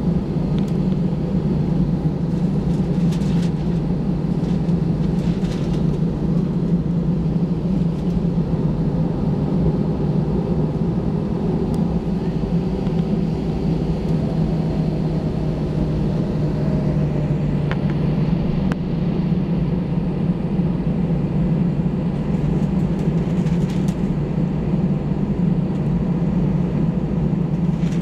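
Cabin noise of an Airbus A319-100 under power after takeoff: the jet engines and the air rushing past the fuselage make a steady, loud rumble.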